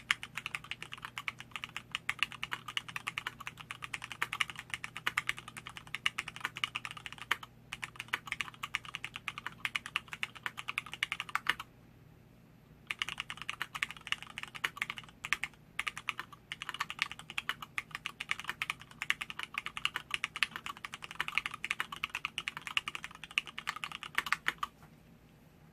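Fast, continuous typing on a custom LZ-IRON mechanical keyboard with Cherry MX Black linear switches on 60 g springs, an aluminium plate and PBT keycaps. It pauses for about a second midway and stops shortly before the end.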